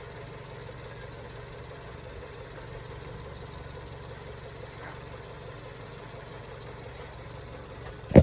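A car engine idling steadily, a low even hum, ending in one sharp knock. This is plausibly the 2014 Ford Escape's 1.6-litre four-cylinder engine, left running for an A/C recharge.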